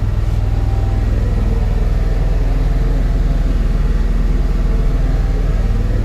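Steady low drone of a running engine, even and unchanging.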